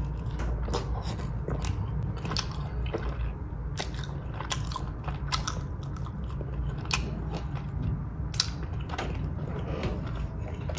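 Close-up eating of a buffalo chicken wing: biting and chewing, heard as irregular soft clicks and crunches over a steady low hum.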